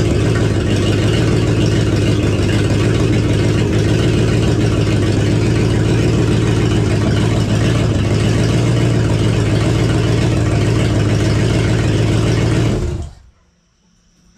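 AMC 360 V8 in a 1976 Gremlin running steadily, with no exhaust system fitted beyond the downpipes. It is switched off about 13 seconds in and dies away within half a second.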